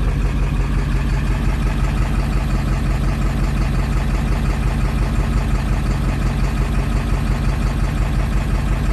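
A 7.3 L Power Stroke turbodiesel V8 idling steadily, heard from inside the cab with the windows down.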